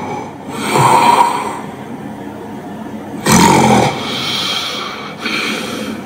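A sleeper snoring erratically, with loud irregular snorts and gasping breaths: one about a second in, a sudden loud one about three seconds in, and a shorter one near the end. The erratic pattern is the sign of obstructive sleep apnea, here hypopneas, rather than a normal steady snore.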